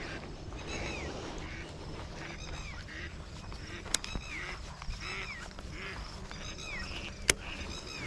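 A bird calling over and over: short calls, each sliding down in pitch, about one a second, over a steady outdoor hiss. Two sharp clicks stand out, one about four seconds in and one near the end.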